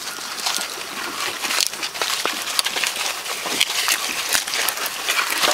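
Goats chewing and pulling at jackfruit leaves: a dense, irregular crackling of leaves being torn, munched and rustled.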